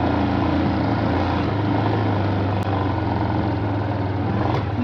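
Single-cylinder 250 cc motorcycle engine running at a steady speed on a dirt road, a constant hum with no change in pitch.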